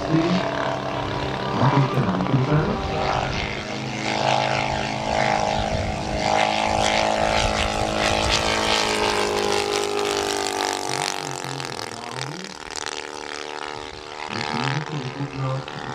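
Two-cylinder four-stroke petrol engine (Valach VM 120 B2-4T) of a giant-scale Zlin XII RC model plane running steadily in flight with its propeller. The pitch slides down a little past the middle as the plane passes.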